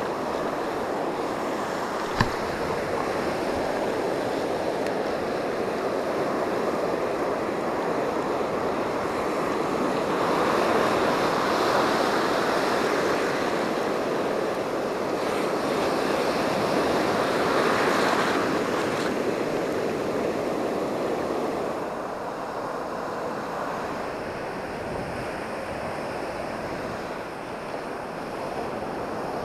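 Ocean surf breaking and washing up a sand beach, a steady rush that swells twice, about 10 and 17 seconds in, then eases. A single short click about 2 seconds in.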